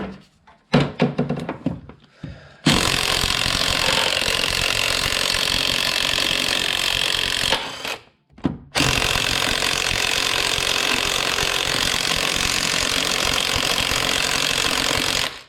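Makita impact wrench hammering on the crank pulley bolt in two long bursts with a short pause about eight seconds in, after a few knocks as the socket goes on. The bolt does not undo.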